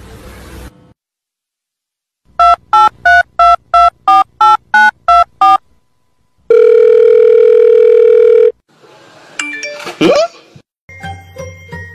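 Telephone keypad tones: about ten short, loud beeps in quick, even succession, then a steady electronic tone held for about two seconds. A quick swooping sound follows, and music with jingling bells starts near the end.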